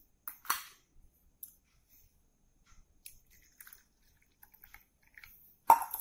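Stainless steel tumblers and a steel bowl knocking and being set down on a hard surface: a few scattered clinks, the loudest near the end with a brief ring.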